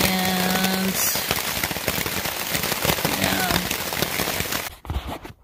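Heavy rain pattering on a tent, a dense, fast spatter of drops. It stops abruptly near the end.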